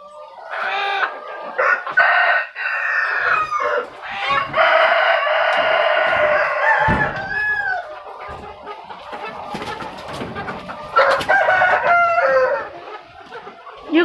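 Kampung chickens squawking and clucking in several loud calls. The longest is drawn out for about two and a half seconds, starting about five seconds in, and drops in pitch as it ends.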